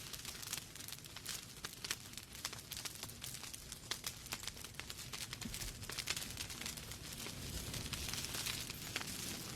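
Wood fire crackling steadily: burning logs give frequent sharp pops and snaps at irregular intervals over a soft hiss of flames.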